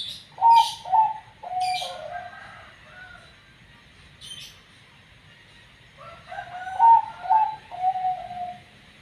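Zebra dove (perkutut) cooing: two phrases of several short coo notes each, about four seconds apart.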